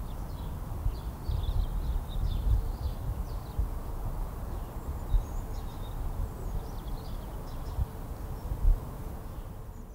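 Outdoor ambience: small birds chirping over a low, irregular rumble.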